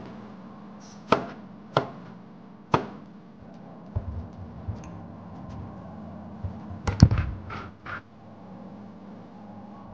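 A handful of sharp, irregular knocks and clacks over a steady low hum, the loudest a quick cluster about two-thirds of the way through.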